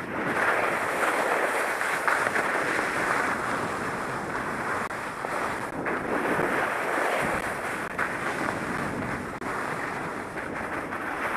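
Skis scraping and hissing over chunked-up snow on a downhill run, the rush rising and falling every second or two, with wind buffeting a helmet-mounted camera microphone.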